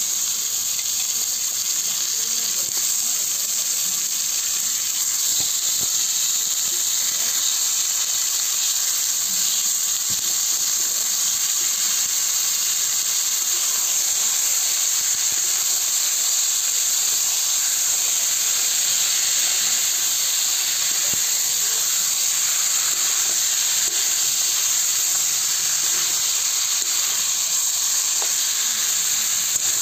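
Chicken pieces and potato frying in oil and spice paste in a steel wok, giving a steady sizzle that runs without a break.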